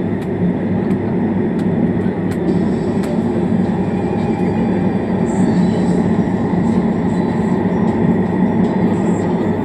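Shah Alam line train in motion, heard from inside the carriage: a steady, even rumble of wheels and running gear on the track, with a few faint clicks in the first few seconds.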